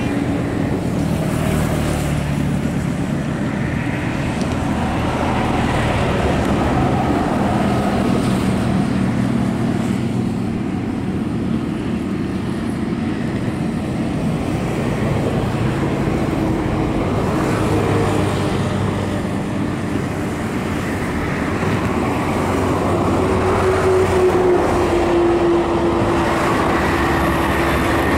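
Steady road traffic on a bridge: passing vehicles' engines and tyres make a continuous noise, with engine hums rising and falling as they go by.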